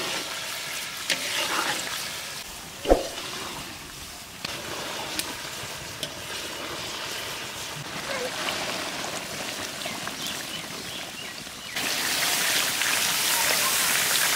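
Fish curry frying in a large metal pan, with spatula clicks and one sharp knock about three seconds in. Near the end water is poured into the hot pan, a sudden louder rush that runs on.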